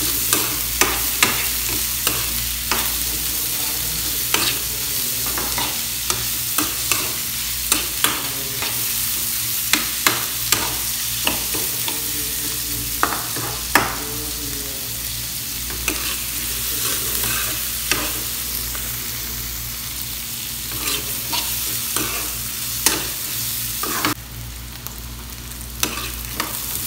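Carrots sautéing in hot oil with onion, garlic and ginger: a steady sizzle, with a utensil stirring and knocking against the pan in irregular sharp clicks. Near the end the sizzle quietens a little.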